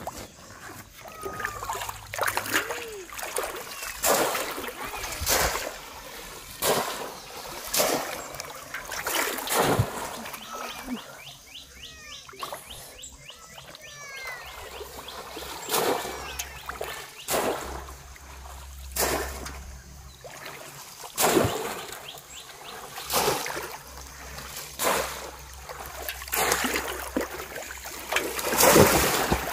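Water splashing in repeated sudden bursts, about every one to two seconds, as a bamboo polo fish trap is lifted and plunged down into shallow river water.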